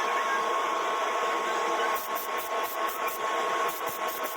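Tamiya Lemon Yellow paint being sprayed onto a small model car body: short bursts of hiss, several in quick succession near the middle and again near the end, over a steady hum with a constant tone.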